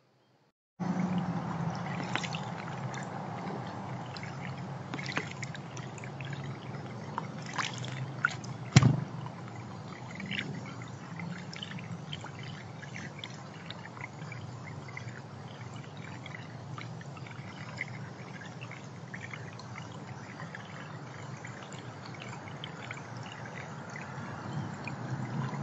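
Steady trickling, pouring water that starts abruptly about a second in, with a few sharp clicks, the loudest about nine seconds in.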